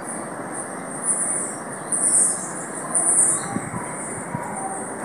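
Outdoor yard ambience: high-pitched chirring calls from small animals swell loudly three times, about one, two and three seconds in, over a steady low rush of background noise.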